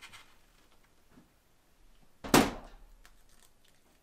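One loud thunk about two seconds in, a hard object knocking in the kitchen, with a short ring after it and a few faint small clicks around it.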